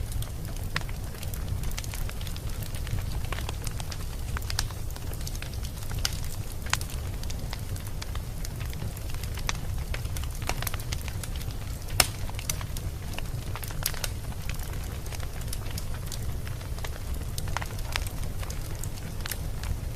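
Wood fire in a fireplace crackling: a steady low rumble of flames with irregular sharp pops and snaps, the loudest pop about twelve seconds in.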